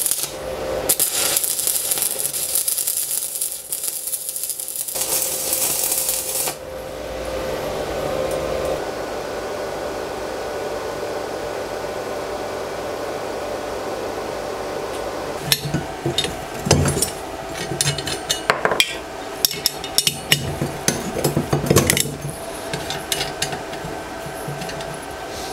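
Stick (electrode) welding on a steel connector: the arc crackles and hisses for about six seconds, then stops suddenly. After a quieter stretch, metal clinks and knocks begin about fifteen seconds in as the welded steel part and its threaded-rod jig are handled.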